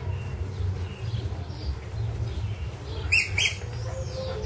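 Small birds chirping in the background, with two sharp, high chirps a fraction of a second apart about three seconds in, over a steady low rumble.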